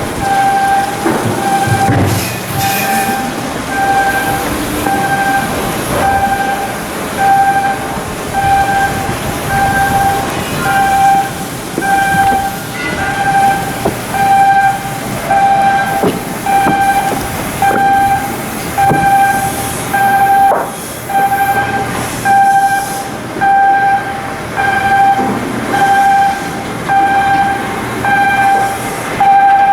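An electronic warning beeper sounding a steady tone about once a second, as on a moving crane or reversing vehicle in a shipyard, with occasional metal knocks in the workshop noise behind it.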